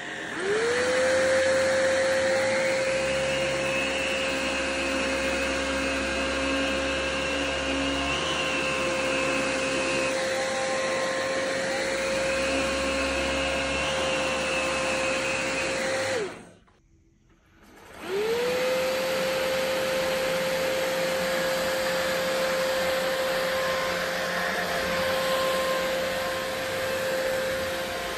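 Philips 7000 Series (7057/01) cordless stick vacuum spinning up and running with a steady high whine, with a lower drone that comes and goes under it. It is switched off about sixteen seconds in and started again about two seconds later.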